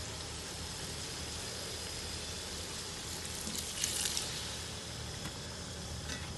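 Chicken and masala sizzling steadily in a large aluminium cooking pot during the bhuna stage. About three and a half seconds in, water poured into the hot pot gives a brief louder hiss and splash.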